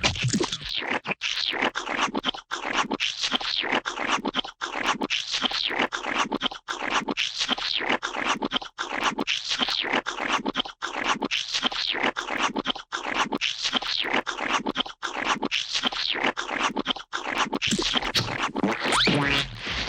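Gooey slime splat sound effects: wet squelching and scraping noises in quick, dense runs, each run breaking off briefly about every two seconds. Near the end a pitched sound with rising tones joins in.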